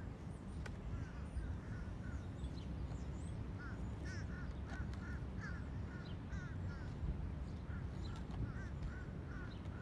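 Crows giving short repeated calls, several a second, over a steady low rumble, with a few faint clicks of a beak pecking at a plastic container.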